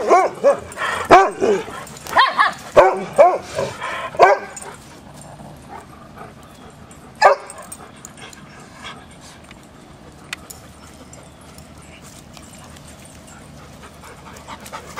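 Dogs barking and yipping in play: a quick run of barks in the first four seconds or so, then one more bark about seven seconds in.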